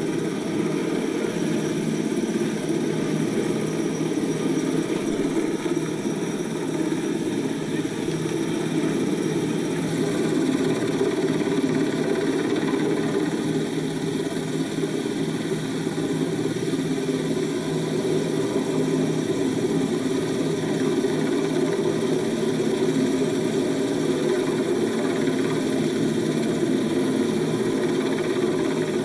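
US Coast Guard rescue helicopter hovering low overhead: a steady, unbroken din of rotor and turbine engine noise.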